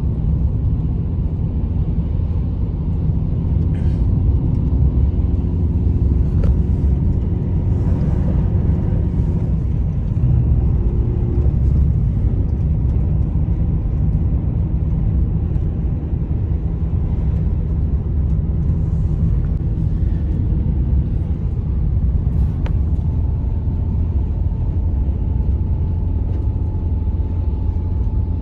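Steady, loud low rumble with faint steady tones above it.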